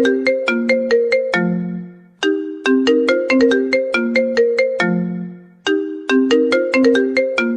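Mobile phone ringtone melody of quick, crisply struck notes, each phrase ending on a longer low note and repeating about every three and a half seconds.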